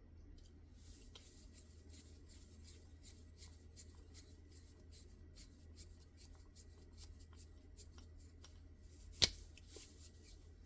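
A Vortex torque driver turning small screws into an optic mounting plate, with a run of faint light ticks. About nine seconds in there is one sharp click as the driver's torque limit is reached, not the screw stripping.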